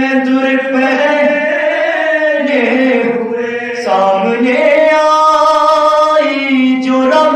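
A male voice chanting an unaccompanied Shia mourning lament (soz-khwani) through a microphone, with long held notes that slide up and down and short breaks between phrases.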